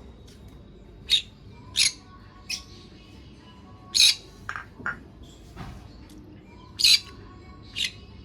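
Small pet parrot giving short, shrill chirps, about eight of them at uneven intervals, the loudest about four seconds in and near seven seconds.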